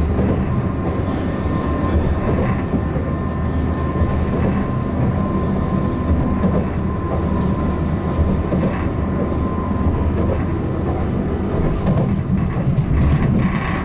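Inside a Class 399 tram-train running along the line: a steady low rumble of wheels on rail and running gear, with a faint steady whine that fades out about two-thirds of the way through.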